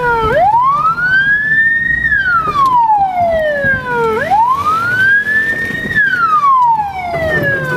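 Police car siren wailing, its pitch rising and falling slowly in a cycle of about four seconds, twice over, with the low rumble of the moving car beneath it.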